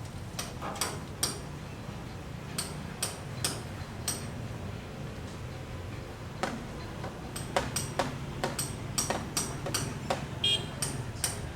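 Irregular sharp metallic taps and clinks, coming in clusters of several a second with a short ringing after each, over a low steady hum.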